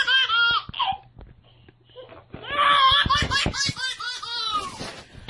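A baby laughing in two bouts, a short one at the start and a longer one from about two and a half seconds in, each a run of quick, high-pitched laughs.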